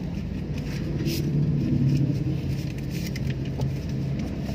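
Car engine and road rumble heard from inside the cabin: a steady low engine hum that swells between about one and three seconds in, with a few faint clicks.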